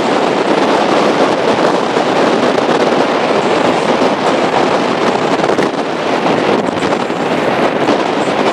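Loud, steady wind rush buffeting the microphone of a powerboat running fast over choppy water, with no clear engine note standing out.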